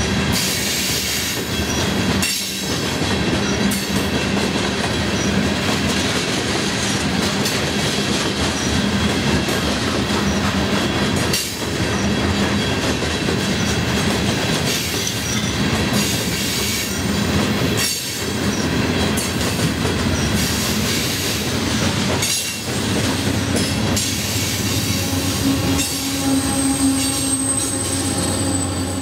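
Loaded coal hopper cars rolling slowly past, with steel wheels squealing on the rails and a steady rumble and clatter. In the last few seconds a Union Pacific diesel locomotive comes alongside and its engine hum grows over the wheel noise.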